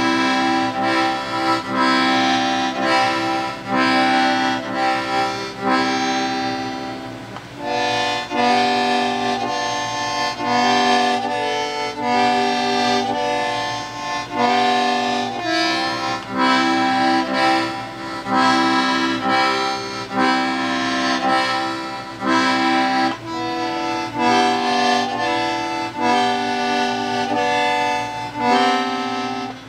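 Small accordion playing an instrumental tune: a melody line of held notes over lower bass and chord notes that pulse in a steady rhythm.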